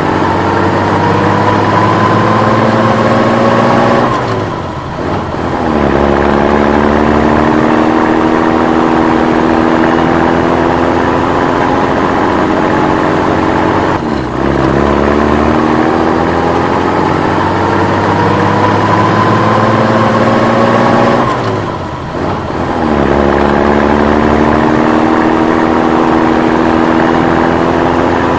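Old military truck engine pulling under way, its pitch climbing steadily as it accelerates and then dropping with a brief dip in level at each gear change, three times.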